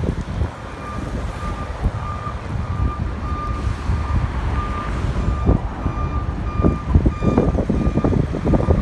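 Pedestrian crossing signal beeping, a short high beep repeating about twice a second, over the steady rumble of street traffic.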